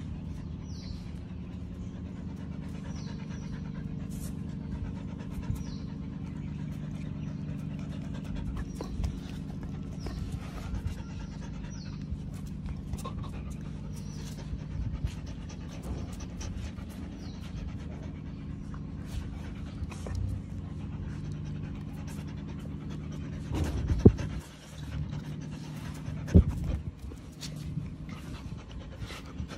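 Dog panting close to the microphone over a steady low hum, with scattered clicks and rustles. Two loud sharp knocks come about two-thirds of the way through, a couple of seconds apart.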